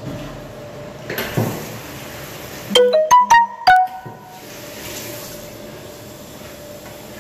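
A short electronic chime of about five quick clear notes, rising and then falling, lasting about a second. A brief rustle of handling comes just before it, and a faint steady hum runs underneath.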